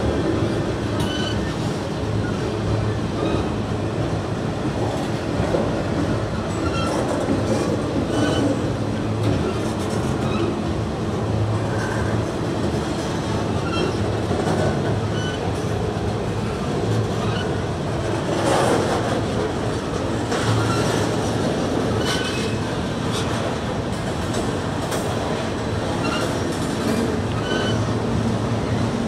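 Freight train of autorack cars rolling slowly through a grade crossing: a steady rumble of steel wheels on rail with scattered clicks.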